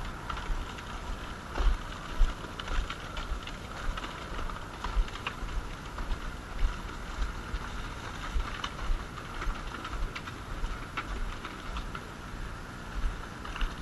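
Rock salt being scattered onto icy pavement, the granules landing in irregular small clicks and rustles.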